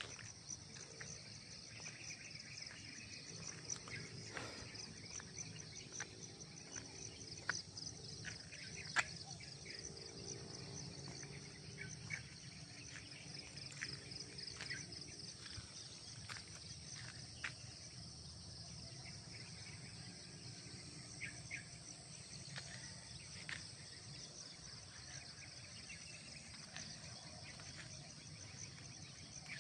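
Steady, high-pitched chorus of insects in tropical garden vegetation, with short bird chirps here and there and a few sharp clicks, the loudest about nine seconds in, over a low steady rumble.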